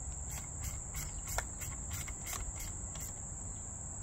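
Outdoor insect chorus: a steady high-pitched trill with short pulses several times a second. One brief falling whistle sounds about a third of the way in.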